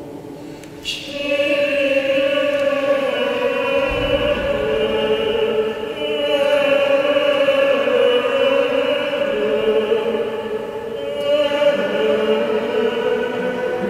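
A choir singing a slow hymn to Mary in long held notes, starting about a second in.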